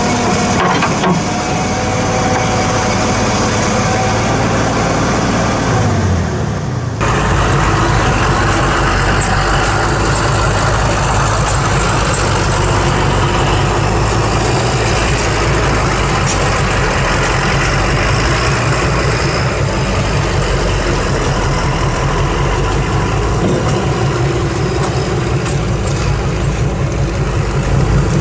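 Heavy diesel excavator engine running. Its pitch drops about six seconds in, and the sound changes abruptly a second later; after that the engine runs steadily.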